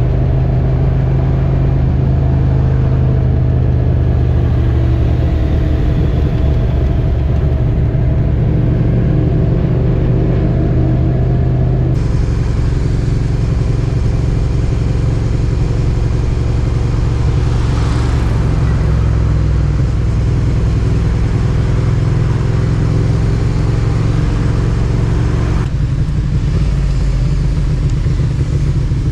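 Suzuki SV650X's V-twin with a Scorpion aftermarket exhaust running at a steady cruise, heard from on board the bike over a steady rush of noise. The engine note drifts only slightly in pitch, and the sound changes abruptly about twelve seconds in and again near the end.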